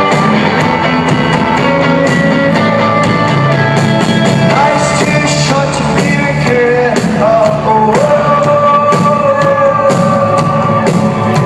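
Rock band playing live, loud and steady: drums keeping a beat under guitars, with a voice singing over them.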